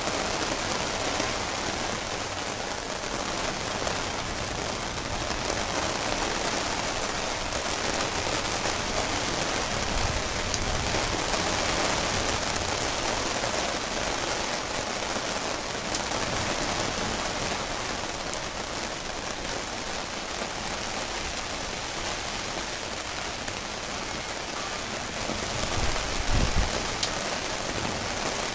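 Heavy rain falling steadily, a dense even hiss of drops, with a brief low rumble near the end.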